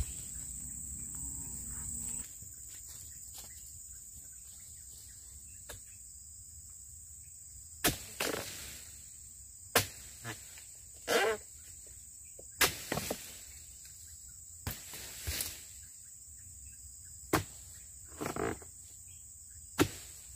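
Repeated sharp chopping knocks of a steel dodos chisel on a long pole striking the base of an oil palm's fronds and fruit-bunch stalk to harvest the bunch: about a dozen strikes, spaced a second or two apart, starting about eight seconds in. A steady high insect drone runs underneath.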